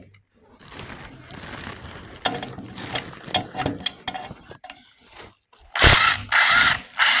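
Impact driver backing bolts out of an engine: a rattling, clicking run of impacts, then several short, loud bursts of the driver near the end.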